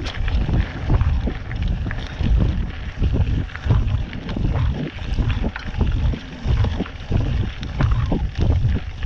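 Mountain bike riding fast down a dirt trail: wind rumbling on the camera microphone, tyre noise on the dirt, and frequent sharp clicks and rattles as the bike jolts over bumps.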